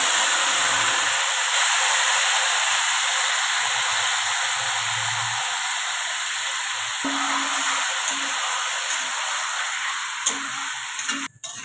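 Yogurt-marinated chicken and onions sizzling loudly in hot mustard oil in a kadai just after being tipped in. The hiss slowly dies down as the meat is stirred with a metal spatula.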